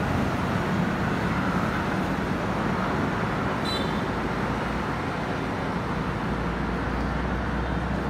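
Steady road traffic: cars passing around a city roundabout, with a brief high-pitched tone a little under four seconds in and a deeper engine rumble coming up near the end.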